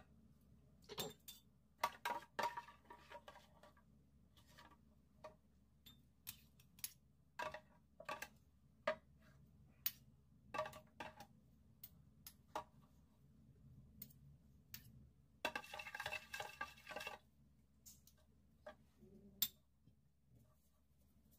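Metal spoon clinking and scraping in a plastic container of dressing and against small dishes while chillies are spooned out: scattered light clicks, with a longer run of ringing clinks about three-quarters of the way through.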